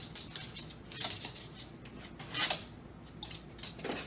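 A dog moving about and nudging a door, with light metallic clinks and clicks and three short swishes about one, two and a half and four seconds in.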